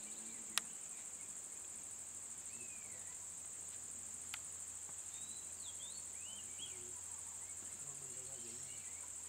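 A steady, high-pitched drone of insects from the roadside forest, with scattered short bird chirps. A sharp click about half a second in and a fainter one about four seconds in.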